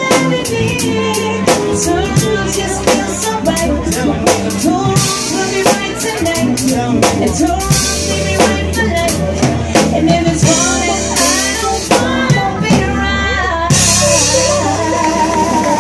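Live R&B/soul band playing with a steady drum-kit beat, keyboard and a woman singing lead into a handheld microphone.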